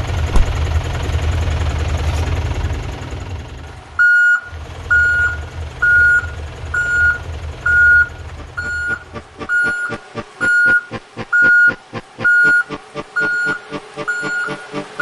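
A vehicle engine running for about four seconds, then a reversing alarm beeping about once a second. Fast, regular ticking joins in about nine seconds in.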